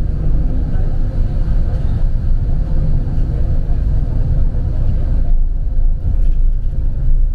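Steady low rumble of a bus on the move, heard from inside the cabin: engine and tyre noise on the highway, with a faint steady hum over it.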